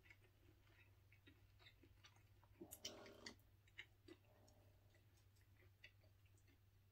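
Faint chewing and mouth clicks, with a fork tapping and scraping in a foam takeout container, loudest about three seconds in, over a steady low hum.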